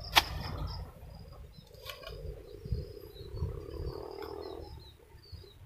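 Short-handled hoe chopping into clumpy soil: dull thuds and scraping, with one sharp knock just after it starts and a lighter one about two seconds in. Small high chirps sound in the background.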